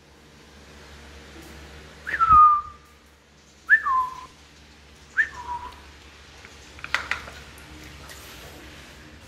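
Belgian Malinois puppy whining for its food: three short high whines, each sliding downward, a second or so apart. A few sharp clicks follow near the end as the food bowl goes down on the tile floor.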